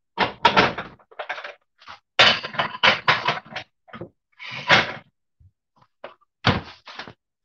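Kitchen clatter: an irregular run of knocks, clanks and rattles from cupboards and cookware being handled, coming in clusters with short gaps.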